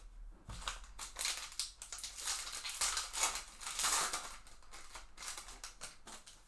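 A 2022 Panini Chronicles Baseball hobby pack's wrapper being torn open and crinkled by hand. It is a crackly rustling, loudest in the middle, that dies away about five seconds in.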